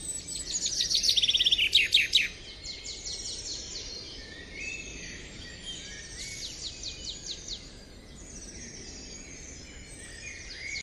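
Wild birds singing and chirping outdoors. There is a loud run of rapid trilled notes in the first two seconds, then softer, scattered chirps and short trills.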